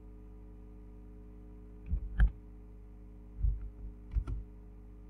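A few scattered computer keyboard key presses, each a dull thud with a click, two near two seconds in and two more about four seconds in, over a steady electrical hum.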